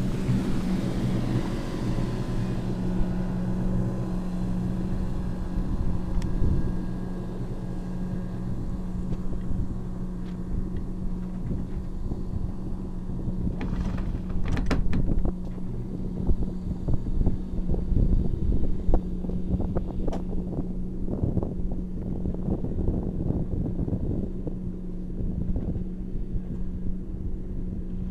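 A sailing yacht's engine running steadily at low speed while motoring, a constant hum under wind rumble on the microphone, with a few knocks about halfway through.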